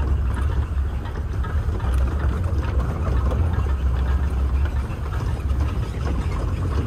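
Open-top jeep's engine running as it drives over a rough, rocky dirt track, with a steady low rumble and the rattle and noise of the ride.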